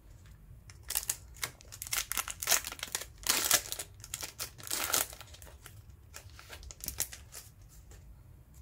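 Wrapper of a basketball trading-card pack crinkling and tearing as it is pulled open by hand, a run of rustles lasting about four seconds, followed by a few fainter crinkles near the end.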